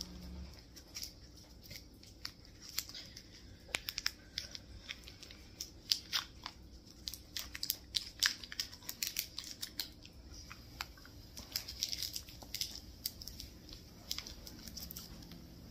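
Snack packaging being torn open and handled: crinkling plastic with many irregular sharp crackles, thickest in the middle and thinning out near the end.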